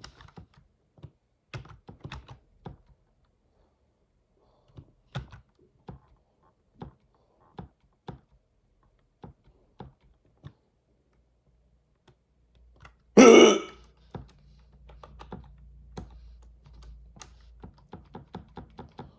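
Scattered keystrokes of someone typing on a keyboard, with one loud, short hiccup about 13 seconds in. A faint low hum comes in after the hiccup.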